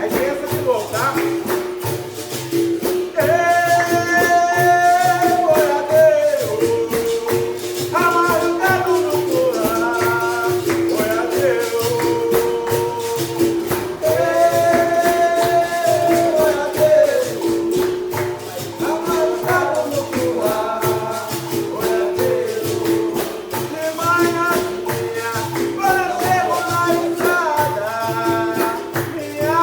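Capoeira music: a berimbau, with a pandeiro and a shaken rattle, playing a steady rhythm under a voice singing a song in phrases of a few seconds each.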